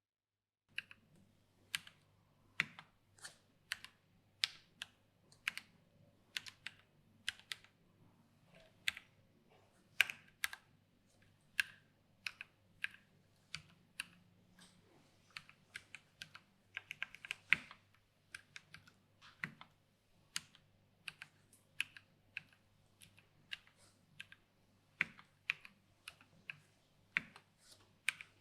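Typing on an aluminium-case mechanical keyboard with Gateron brown tactile switches and PBT keycaps: separate, unhurried key presses about two a second, starting just under a second in, with a quick flurry of keystrokes about midway.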